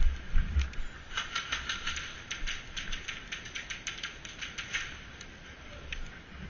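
A quick, irregular run of sharp clicks and crackles. It starts about a second in and fades out about five seconds in, after a few low thumps at the start.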